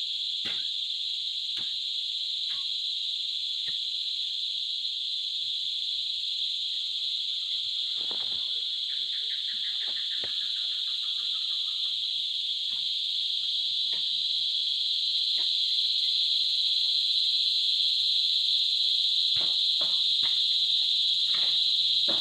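Steady, high-pitched drone of a tropical insect chorus, unbroken throughout, with scattered light taps and rustles from hands working soil and plastic planting cups.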